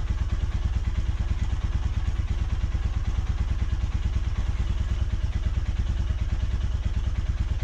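Royal Enfield Himalayan's 411 cc single-cylinder engine idling steadily in gear on its centre stand, turning the rear wheel and chain, with an even low pulse.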